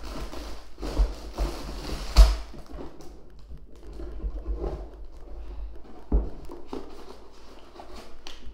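Plastic Lego bricks being handled and pressed together: irregular light clicks and rustling, with a few louder knocks, the loudest about two seconds in.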